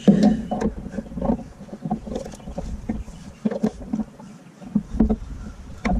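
Irregular clicks and knocks of hands and a small tool working at a Craftsman tiller's carburetor with its float bowl off, checking that the float moves freely. The strongest knock comes right at the start, with a few scattered ones after it.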